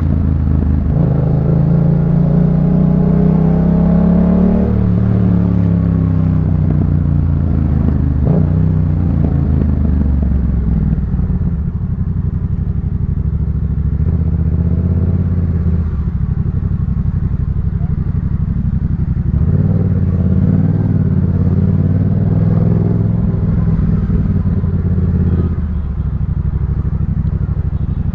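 Yamaha MT-07's 689 cc crossplane parallel-twin engine through a Jeskap K4 full exhaust, the bike being ridden. The engine note climbs and falls over the first several seconds, runs steadier through the middle, rises again about twenty seconds in, and drops back lower near the end.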